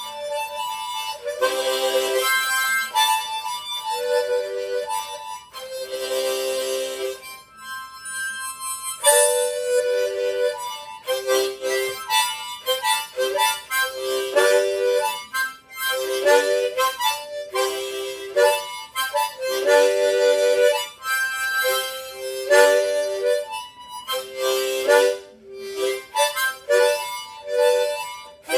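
Harmonica playing an instrumental passage of a song, rhythmic runs of held notes and chords.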